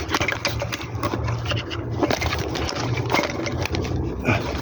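A quick, irregular series of clicks and knocks with some scraping, over a low steady hum.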